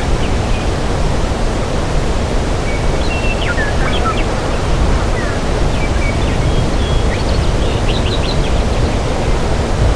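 Forest ambience: a steady rushing noise, heaviest in the low end, with small birds chirping and trilling faintly in short bursts, about three seconds in and again around seven to eight seconds.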